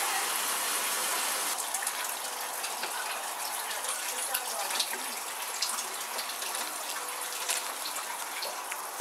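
A wooden spatula stirring a wet batter of shredded white radish and rice flour in a pan on the stove, with scattered scrapes and squelches over a steady hiss, as the turnip-cake mixture is cooked down towards a paste.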